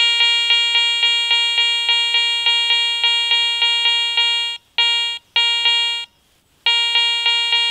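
Garrett ACE 400i metal detector sounding its target tone for a silver 5 Mark coin passed over the coil. It is a steady beep pulsing about three times a second. It breaks off briefly twice and for about half a second some six seconds in, then starts again.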